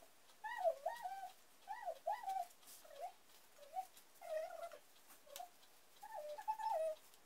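An animal's short, high calls, about two a second, each bending up and down in pitch.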